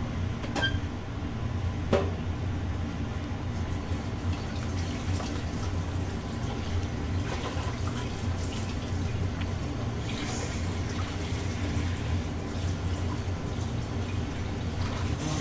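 Hot pot broth bubbling and simmering in a metal nabe pot, with a ladle clinking against the pot a couple of times in the first two seconds, over a steady low hum.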